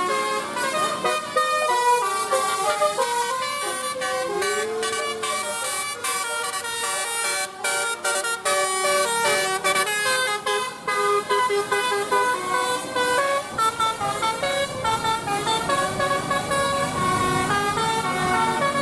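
Basuri telolet bus horn playing a melody in quick stepped notes, several horn tones sounding together.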